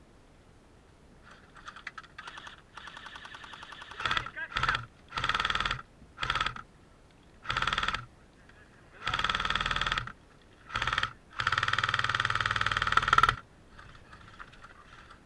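An airsoft automatic electric gun firing on full auto in short bursts. Faint rapid fire comes first, then about seven loud bursts of fast, even clicks, the longest, about two seconds, near the end.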